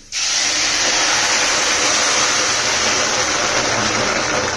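Water poured steadily into a hot stainless steel pan of dry-roasted vegetables, a loud hissing rush as it hits the hot metal and turns to steam. It starts suddenly and eases a little near the end.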